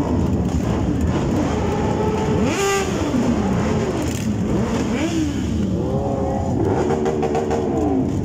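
A street full of motorcycle engines idling, with the revs of bikes rising and falling again and again over the steady rumble.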